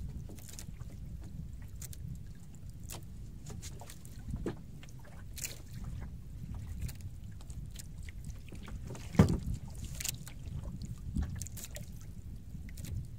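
Steady low rumble of water and wind around a small outrigger boat. Scattered small clicks and knocks come from handling on board, with one sharp knock about nine seconds in.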